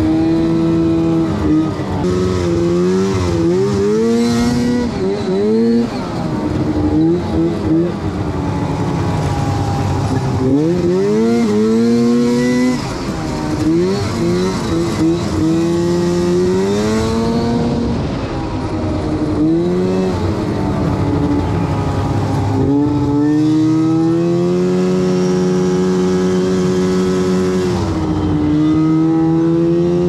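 2006 Arctic Cat M7 snowmobile's Suzuki 700 two-stroke twin engine running under way, revving up and easing off again and again, with steady stretches of even throttle between.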